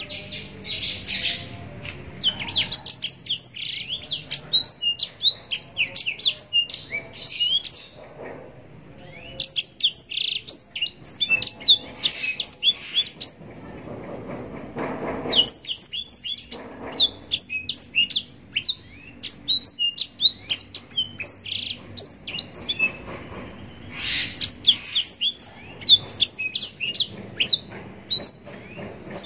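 Blackthroat (black-throated canary) singing: long runs of fast, high twittering notes lasting several seconds each, broken by short pauses.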